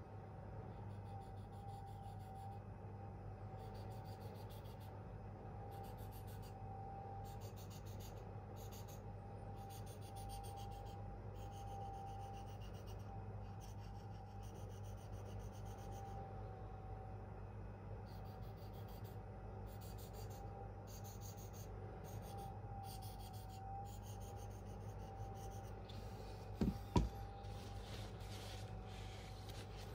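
Steel knife blade stroked by hand across a Venev F800 diamond sharpening stone: runs of short, faint scraping strokes with brief pauses between them, over a steady faint hum. Two sharp knocks come near the end.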